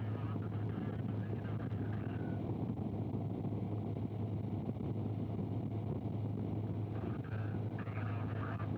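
Race camera motorbike's engine running steadily at cruising speed, with a constant low hum and rushing wind noise.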